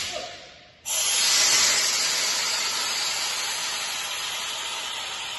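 Compressed air hissing out of a compressor: a first rush fades away, then a second starts abruptly about a second in and slowly dies down as the air vents.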